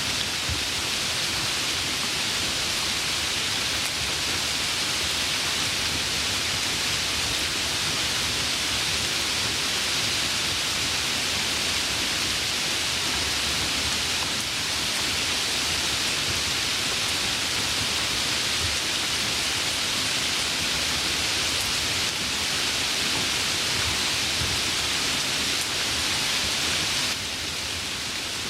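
Steady rain falling, an even hiss, dropping a little in level near the end.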